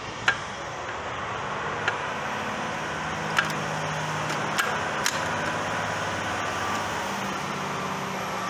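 About five sharp metallic clicks and taps as the shafts and shift forks of a Honda K20 6-speed transmission are handled in the bell housing, the loudest just after the start. Under them runs a steady mechanical rumble with a low hum and a faint high whine.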